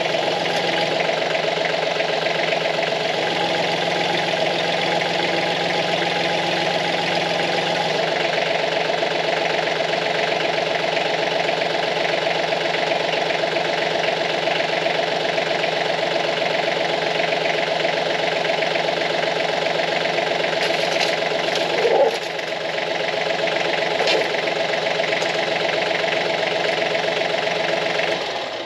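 Branson 2515H compact tractor's three-cylinder diesel running steadily while the front loader raises and lowers a load of over 2,000 pounds: a 200-gallon water tote on pallet forks. There is a brief louder moment about two-thirds of the way through, and the engine sound dies away at the very end.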